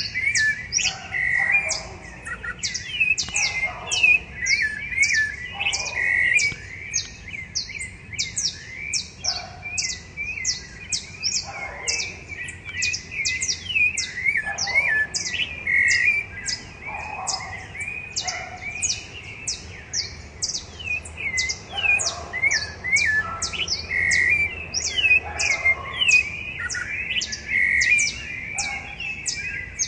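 Several rufous-bellied thrushes singing at once, overlapping curling whistled phrases. Behind them runs an even series of high, thin, sharp notes, two or three a second.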